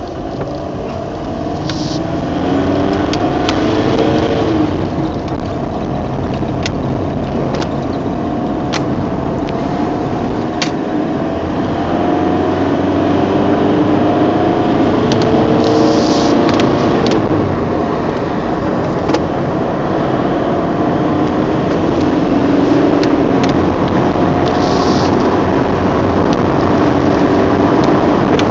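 Vauxhall Vectra driving, heard from inside the cabin: the engine note rises and falls as it pulls through the gears, over steady tyre and road noise. A few light ticks come through now and then.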